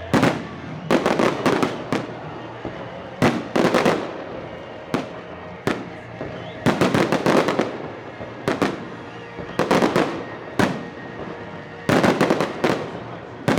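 Fireworks salute shells bursting overhead: sharp bangs in quick clusters of several, repeating every second or two, each with a short echoing decay.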